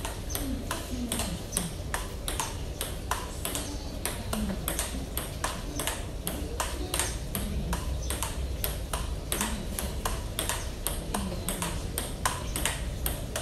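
Table tennis ball clicking back and forth off paddles and table in a steady forehand practice rally, about four hits a second without a break.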